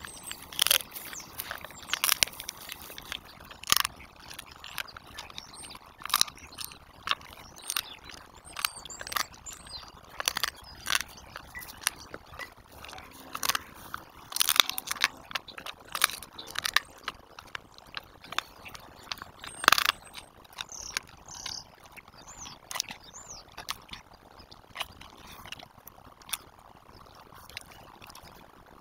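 Large dog crunching a dried chicken foot: a run of sharp cracks and crunches, thick for the first twenty seconds or so, then thinning out as the foot is finished.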